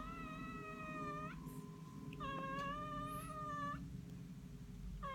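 Domestic cat meowing in long, drawn-out, steady calls: one ends about a second in, a second lasts about a second and a half in the middle, and a third begins at the very end.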